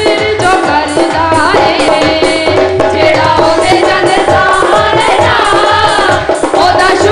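Devotional worship song performed live: women's voices singing into microphones over a steady drum beat.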